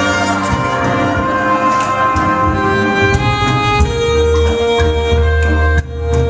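Rumba dance music: held melodic notes over a steady low bass with light percussion ticks. It drops briefly near the end.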